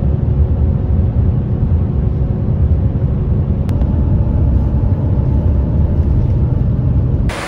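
Steady low rumble of a car on the move, road and engine noise heard from inside the vehicle, with a faint steady hum and no change across the picture cuts.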